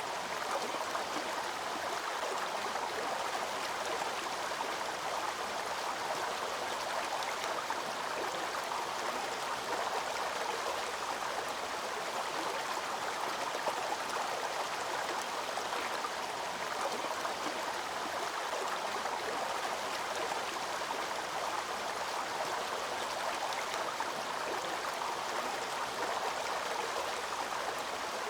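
Steady rushing of falling and flowing water at a waterfall, an even noise without breaks.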